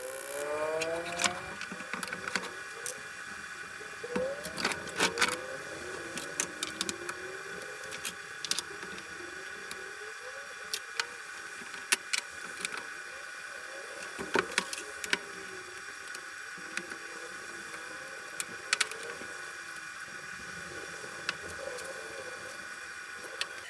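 Scattered sharp clicks and knocks of steel square tubing being handled, positioned and measured on a wooden workbench, over a steady background hum with faint wavering tones.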